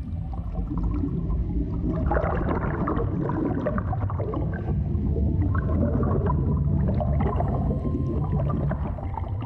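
Underwater water ambience: a steady low rumble with bubbling and gurgling that grows busier about two seconds in.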